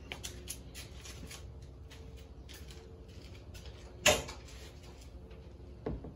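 A sharp knock about four seconds in and a softer one near the end, with a few light clicks before them over a low steady hum.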